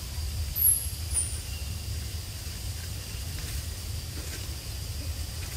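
Forest ambience: a steady low rumble, a thin high steady drone like insects, and two short, very high falling chirps about a second in.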